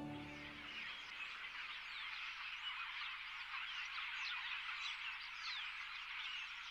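Many wild birds calling at once: a dense chorus of short, overlapping calls.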